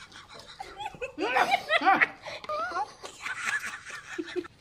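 Women laughing in quick repeated bursts, loudest from about one to two seconds in.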